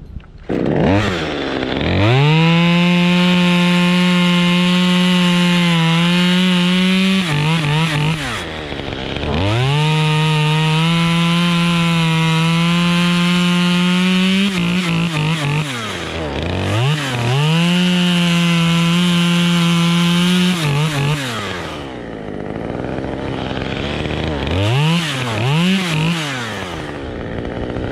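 Gas chainsaw opened up to full throttle three times, holding high revs for about five seconds each and dropping back toward idle between, then two short blips of the throttle near the end.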